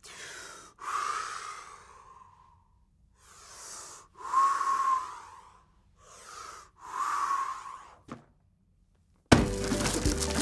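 A series of about five breathy whooshing sounds, each a second or so long with a whistly tone in it, the loudest about four seconds in, then a short click. Near the end a loud, busy noise starts suddenly.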